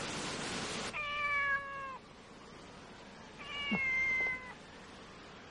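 Calico cat meowing twice: two drawn-out meows about a second long each, both dropping in pitch at the end. Before them, a steady rushing noise cuts off suddenly about a second in.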